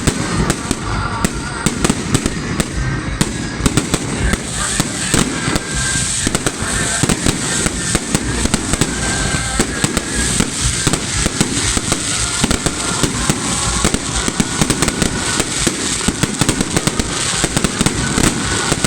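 Fireworks salute: rapid, overlapping bangs of bursting shells, with continuous crackling and no let-up.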